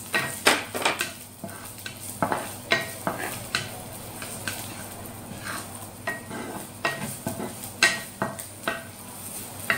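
Wooden spatula stirring and knocking irregularly against a wok as garlic and onion sizzle in hot oil.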